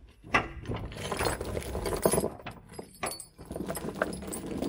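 Hand-lever grease gun being pumped at a grease nipple: irregular metallic clicking and clinking of the lever and gun.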